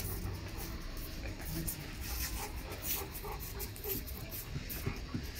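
Rottweilers moving about close by, with soft dog sounds, scuffs and scattered small clicks over a low steady rumble.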